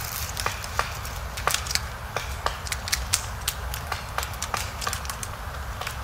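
Woodpecker bill tapping and prying at pine bark: irregular sharp taps, about three a second, over a steady low rumble.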